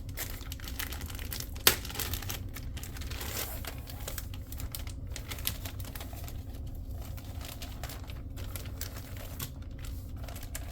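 Crinkling of packaging and small clicks and knocks of computer parts being handled, with one sharp click just under two seconds in, over a steady low hum.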